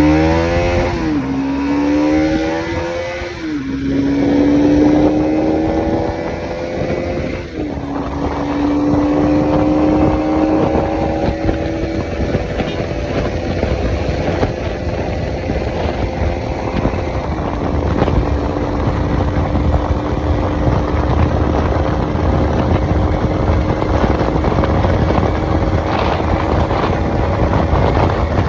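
Bajaj Pulsar NS200's single-cylinder engine on its stock exhaust, accelerating hard at high revs. The pitch climbs and drops sharply at each upshift, about three and a half, seven and a half and seventeen and a half seconds in, then rises only slowly as the bike nears top speed. Wind rushes steadily underneath.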